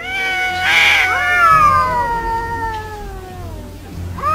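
Cat caterwauling at another cat in a face-off: one long yowl that slides slowly down in pitch, with a short harsh rasp about a second in, and a new yowl starting near the end.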